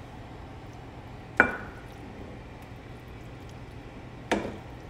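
A spoon knocking against a pot while sauce is spooned out, twice: a sharp clink with a brief ring about a second and a half in, and a duller knock near the end.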